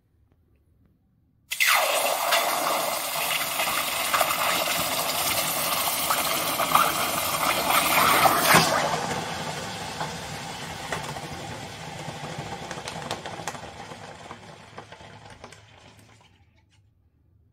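Hot, freshly cast metal bars quenched in a pot of water: a sudden loud hiss of boiling water and steam with crackling starts about a second and a half in, stays strong for several seconds, then fades gradually and dies away shortly before the end.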